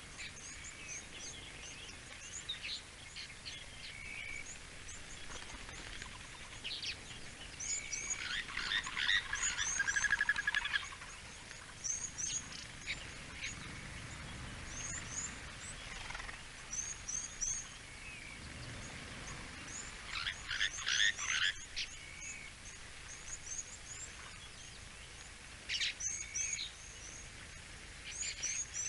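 Wild birds calling: short high chirps repeat throughout, with two louder bursts of rapid chattering calls, one about eight seconds in and one about twenty seconds in.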